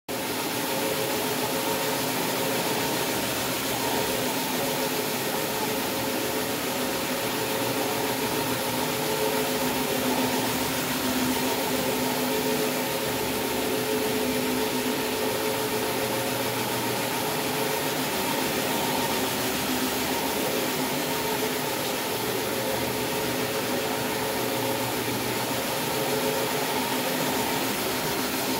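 Counter-rotating brush carpet machine running steadily as it is pushed over carpet, a constant electric motor hum with a few steady tones over the whir of its brushes working the pile.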